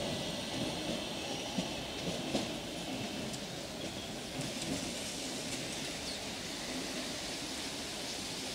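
Oslo Metro MX3000 electric train running away into the distance, a steady rumble of wheels on rails with a couple of sharp clicks between one and three seconds in.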